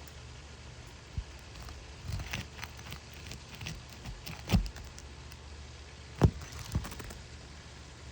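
A few irregular knocks and thumps, the loudest about four and a half and six seconds in, over a low steady hum.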